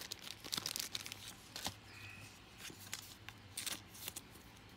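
Trading cards being picked up and handled close to the microphone: a string of faint, irregular rustles and clicks as the cards slide against each other.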